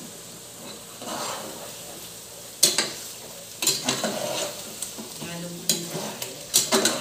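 Metal spoon stirring chicken pieces in a pot, clinking sharply against the pot several times, over the sizzle of the chicken frying in the fat it has given off.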